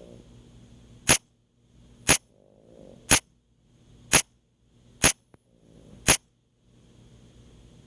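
Soft snoring, faint between six sharp, loud clicks that come evenly about a second apart.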